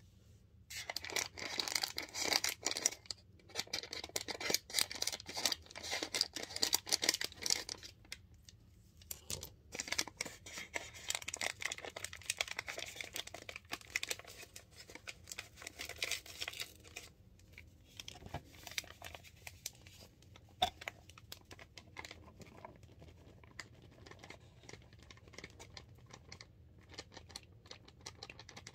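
Plastic bag of cornstarch crinkling and rustling as it is handled and the cornstarch is tipped out into a bowl. The crinkling comes in dense spells with short pauses and thins out after about eight seconds.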